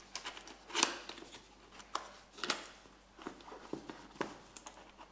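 Cardboard box being handled and opened by gloved hands: scattered scrapes, rustles and light taps of cardboard, the loudest scrape a little under a second in.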